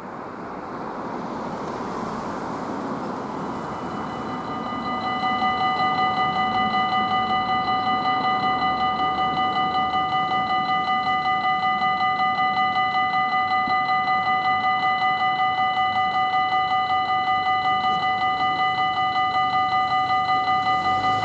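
Road traffic noise rises over the first few seconds. About five seconds in, the level crossing's electronic warning bell starts, a loud, rapid, steady ringing that signals a train is coming and the barriers are about to lower.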